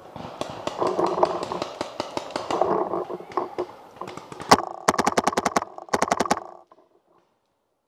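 Rustling and scattered clicks as the player moves among dry leaves and logs. Then a paintball marker fires: one loud shot about four and a half seconds in, then a fast even burst of about eight shots and a shorter burst of about five. The sound cuts off abruptly soon after.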